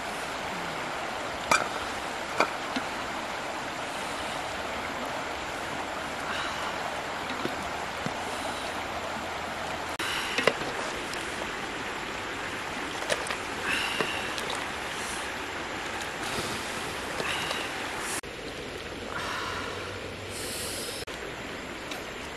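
Steady rush of flowing water, with a few sharp knocks scattered through it.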